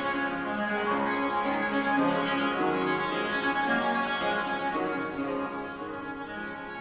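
Viola da gamba playing a moving line of bowed notes, with theorbo accompaniment, in a Baroque sonata; the playing grows a little softer near the end.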